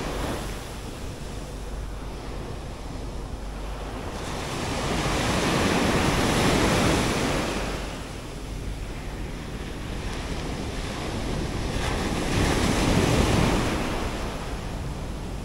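Ocean surf breaking on the shore, swelling louder twice (once near the middle, once near the end), with wind buffeting the microphone.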